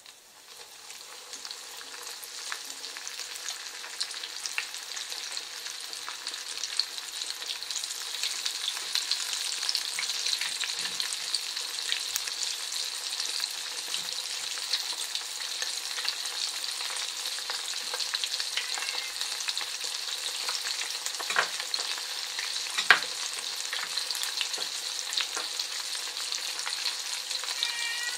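Breaded onion rings deep-frying in hot oil: a steady crackling sizzle that builds over the first several seconds as a ring goes in, then holds, with a couple of sharper pops about two thirds of the way through.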